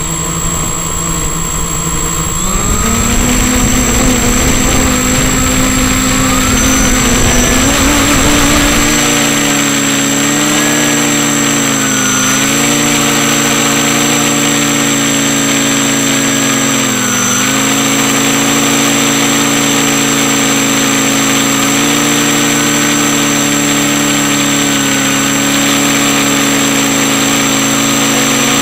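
FPV quadcopter's electric motors and propellers whirring steadily. The pitch rises over the first few seconds and dips briefly twice later on. A low rumble runs under it for about the first nine seconds, and a thin high whine sits over the whole sound.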